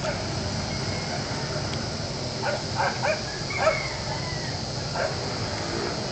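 Five short, sharp animal calls, bunched in the middle and spaced less than a second apart, over a steady background noise.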